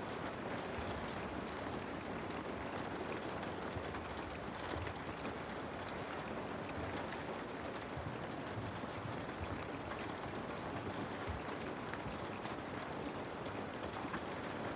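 Steady rain falling on a window: an even hiss with scattered faint drop ticks and a low rumble underneath.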